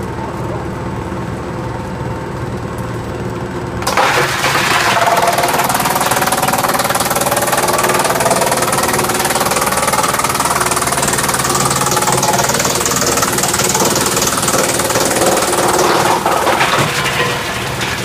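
GX218 drum wood chipper running steadily, then about four seconds in a log fed by the conveyor belt reaches the cutter drum and is chipped with a loud, continuous grinding noise. The noise eases somewhat near the end as the log is used up.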